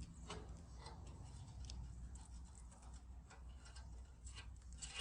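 Faint, irregular light clicks and ticks, about half a dozen, over a low steady hum.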